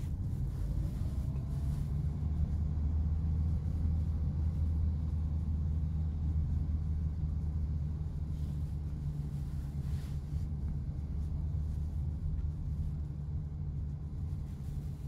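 Steady low drone of road and drivetrain noise inside the cabin of a SsangYong Torres SUV rolling slowly downhill at about 20 km/h.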